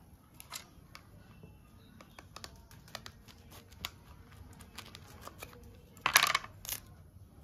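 Fresh cauliflower head being broken apart by hand, florets snapping off the stalk in a run of small crisp clicks, with a louder crunch about six seconds in.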